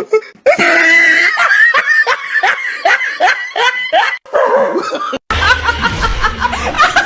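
A person laughing hard in quick, repeated bursts. About five seconds in it cuts off abruptly, and a low rumble with music starts.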